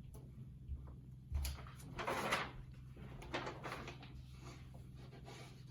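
Picture-book pages being handled and turned: a soft thump about a second and a half in, then a papery rustle around two seconds in, with fainter rustles after.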